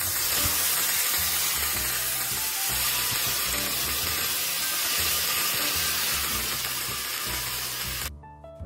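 Hot dog sausages cooking in a hot pan: a loud, steady sizzling hiss that cuts off suddenly near the end.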